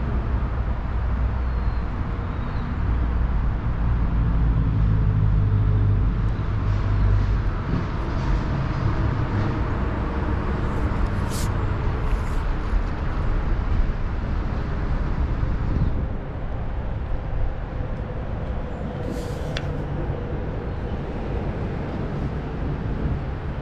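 Steady rushing of creek water, under a low rumble that swells between about two and eight seconds in and eases later. A few sharp clicks sound near the middle and again near the end.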